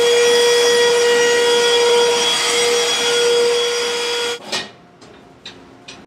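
Vacuum cleaner running with a steady high whine over a rushing hiss of air. It stops abruptly about four seconds in.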